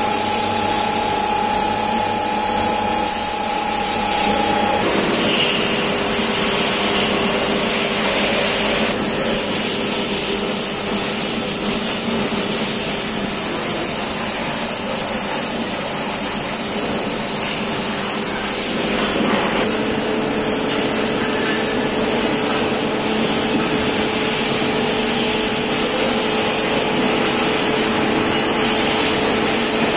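Steady running noise of industrial machinery, with a strong high hiss and a few steady hums that change pitch about five seconds in and again about twenty seconds in.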